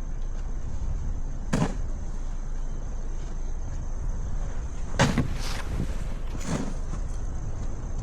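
Winter street ambience: a steady low rumble of wind and traffic, broken by a few short sharp knocks or crunches, one about one and a half seconds in and three more between about five and six and a half seconds.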